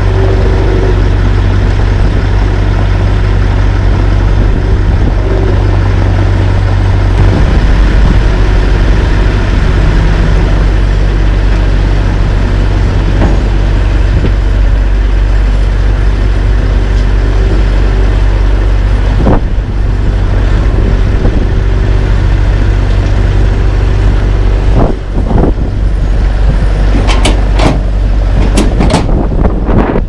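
Diesel engines of a dump truck and a LeeBoy 8515B asphalt paver running steadily while the truck tips asphalt into the paver, with a run of sharp bangs near the end.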